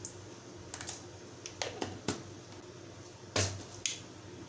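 Mustard seeds in hot oil starting to pop: a handful of sharp, irregular crackles and pops, the loudest about three and a half seconds in.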